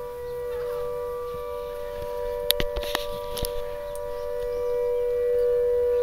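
Air raid siren holding a steady, unwavering note, getting louder towards the end. A few sharp clicks come about two and a half to three and a half seconds in.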